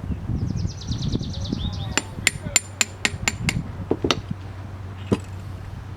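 Sharp metal-on-metal hammer taps with a bright ringing edge while a power steering pump is being taken apart. A brief run of faint rapid clicks comes first, then about seven quick taps a quarter second apart, then three more spaced out.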